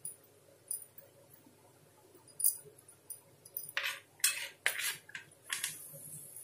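A metal spoon clinking and scraping as spiced potato filling is scooped off a plate and pressed into hollowed snake gourd pieces. A few sharp clicks come first, then a run of quick scrapes from about four seconds in.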